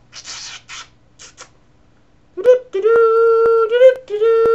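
A voice singing a wordless tune of long, steady held notes at a fairly high pitch, with short slides between them, starting about halfway in. A few soft breathy sounds come before it.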